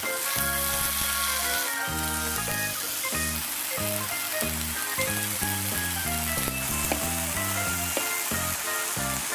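Mushrooms sizzling in oil on a hot griddle plate, a steady frying hiss, with background music playing under it.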